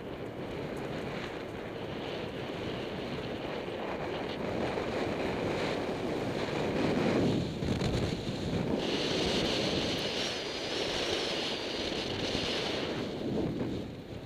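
Rushing wind noise on the microphone during a miniwing paraglider flight. A higher hiss joins from about two thirds of the way in and drops away near the end.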